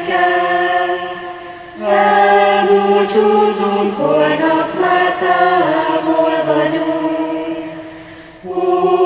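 Choir singing a Hungarian graduation song in long held notes, three phrases, the last one longer and fading away before the next starts.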